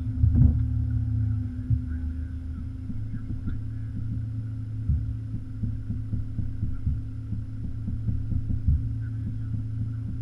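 Mercedes 190E 2.3-8v's 2.3-litre four-cylinder engine idling at a standstill: a steady low hum broken by uneven low thumps.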